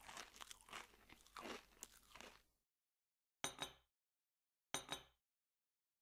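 Crunching and chewing of a raw carrot being bitten, a sound effect for a clay pig eating, lasting about two and a half seconds. It is followed by two brief sharp sounds about a second apart.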